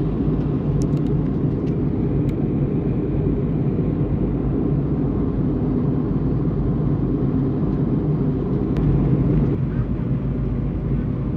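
Steady airliner cabin noise in flight: the drone of the engines and rushing air, with a few faint clicks in the first couple of seconds.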